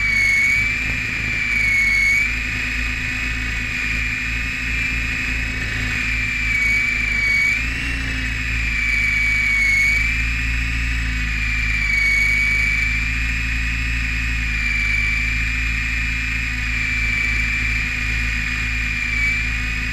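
RC helicopter's motor and rotors heard from a camera mounted on the craft: a steady high whine that dips and rises slightly a few times, over a low rumble.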